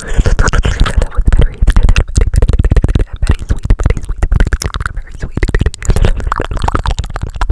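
Fast, aggressive close-microphone ASMR sounds: a dense run of rapid clicks and pops with heavy low thumps.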